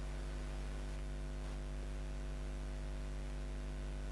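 Steady electrical mains hum, a low drone with a ladder of evenly spaced higher tones, over a faint even hiss.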